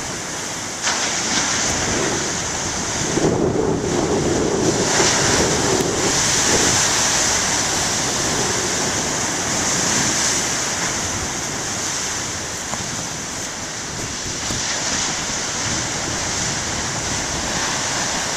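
Big ocean waves breaking and surging ashore, a continuous rush of surf that swells and eases, with wind on the microphone.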